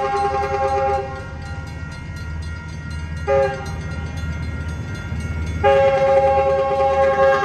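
Metrolink train's multi-chime horn sounding the grade-crossing signal: a long blast ending about a second in, a short blast around three seconds in, and another long blast starting near the end. A steady low rumble from the train runs underneath.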